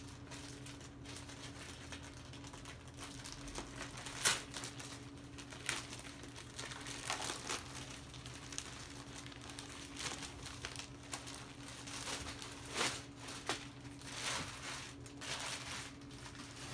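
Clear plastic packaging crinkling and rustling as it is worked open and pulled off a stack of microfiber towels, with irregular handling noise and a few sharper crackles, the loudest about four seconds in and a cluster near the end. A faint steady low hum runs underneath.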